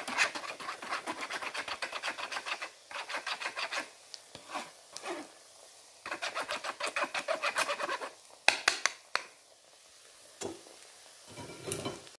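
A wooden spatula scrapes beaten egg through a fine metal mesh sieve in quick, rasping strokes of wood on wire mesh, in three bursts. It is followed by a few sharp taps and knocks about two-thirds of the way in.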